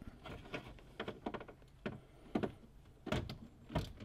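Scattered, irregular clicks and knocks of a socket wrench on an extension and a bolt being worked into place in a tight spot up under a car's dashboard.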